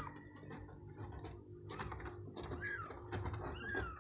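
Young kitten mewing, about four short high calls that rise and fall, with soft rustling and small clicks from handling.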